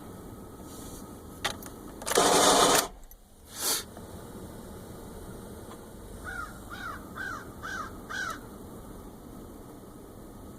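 2010 Honda Accord starting in cold weather with a loud noise for under a second, followed by a shorter second burst; the owner takes it for a bad starter, or less likely a bad flywheel. A crow caws five times in quick succession a few seconds later.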